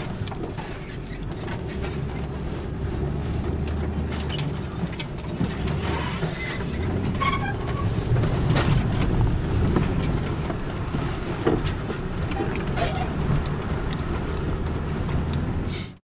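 Car being driven, heard from inside the cabin: a steady low engine and road rumble with frequent small rattles and knocks. It cuts off suddenly near the end.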